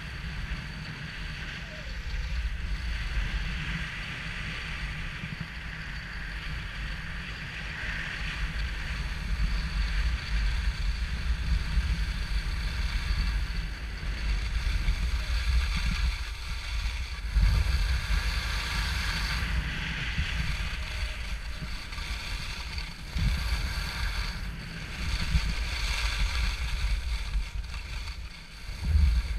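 Wind buffeting an action camera's microphone as it skis downhill, over a steady hiss and scrape of skis sliding on groomed and wind-packed snow. The sound swells and eases with the turns.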